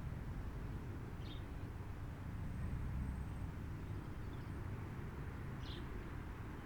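Steady low background rumble, with two short bird chirps, about a second in and near the end.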